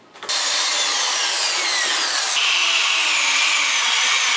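Corded electric drill starting about a third of a second in and running steadily, its bit boring a small pilot hole into a PVC pipe; the sound shifts about two seconds in.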